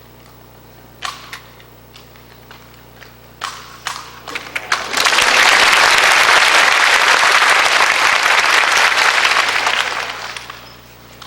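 A few sharp clacks and thuds, typical of rifle drill, in the first few seconds, then an audience applauding for about five seconds before the clapping fades out near the end.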